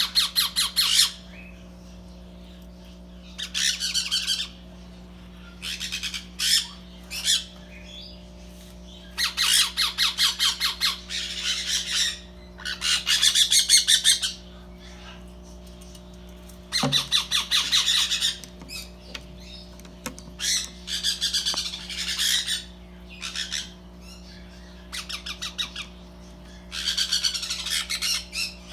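Parrots squawking in repeated harsh, pulsing bursts of a second or two each, every few seconds, over a faint steady low hum.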